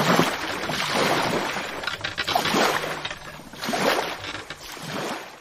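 Sailboat under way: water rushing and splashing along the hull with wind, in surges about once a second, fading near the end.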